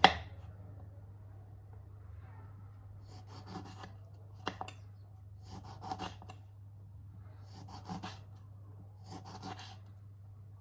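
A sharp knock, then a series of short scraping strokes, one every second or so, over a low steady hum.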